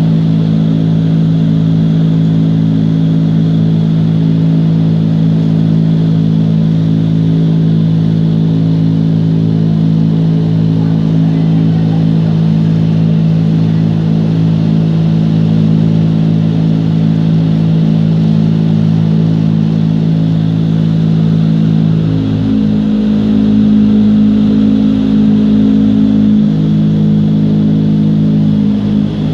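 Indoor skydiving wind tunnel fans running: a loud, steady drone of low hum tones over rushing air. The tones change about two-thirds of the way in and again shortly after.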